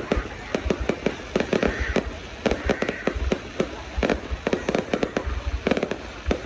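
New Year fireworks going off in a dense, irregular stream of bangs and cracks, several a second.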